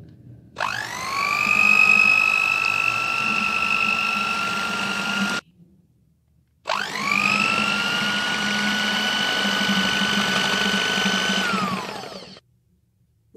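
Electric hand mixer running twice, about five seconds each with a short pause between, its beaters working whipped cream and mango puree together. Each time the motor whine rises as it spins up and then holds steady; near the end it falls away as the mixer is switched off.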